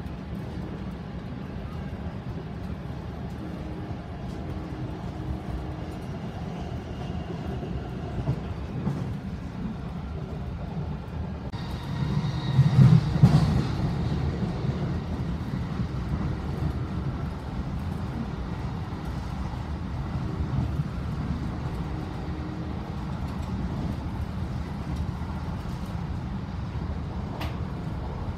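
Steady rumble of a moving train heard from inside the carriage, with a louder swell about halfway through.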